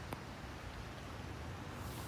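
Faint, steady background noise with a low rumble and a light click just after the start.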